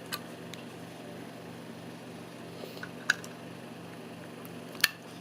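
A few sharp small clicks, about a second in, three seconds in and near the end, as a charger plug and USB cable connectors are handled, over a steady low electrical hum.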